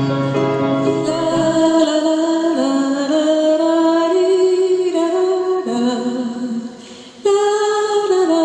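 Slow song with a held, gently gliding sung melody over soft accompaniment, dipping briefly about seven seconds in before carrying on.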